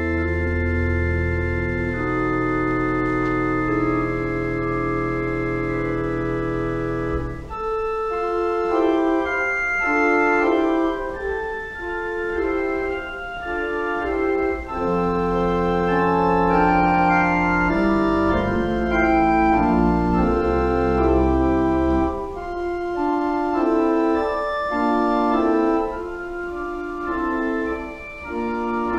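Church pipe organ playing: a held chord over a deep bass note for the first seven seconds or so, then a moving passage of changing chords with shifting bass notes.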